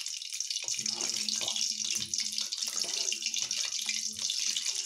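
Urad dal batter being beaten by hand in a steel bowl: a steady, wet hiss.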